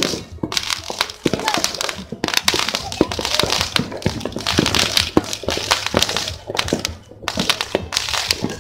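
Firecrackers and fireworks going off across the city, many overlapping sharp pops and cracks in an irregular, continuous crackle, easing off briefly about seven seconds in.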